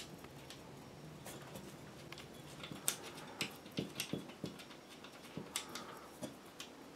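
Faint, irregular small clicks and scrapes as the retaining screws of a glass globe ceiling light are loosened by hand and the glass shade shifts in its metal holder.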